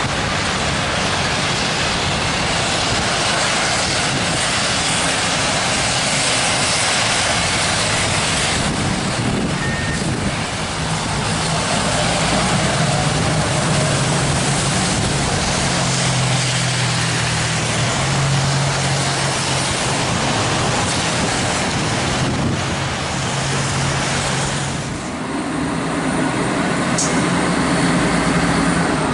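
Fire engines driving through heavy rain and standing water: a steady hiss of rain and tyre spray over the low drone of diesel engines, with the engine drone strongest about halfway through as an engine ploughs through a flooded street. Near the end the spray hiss drops away and a fire engine's diesel engine is heard running as it leaves the station.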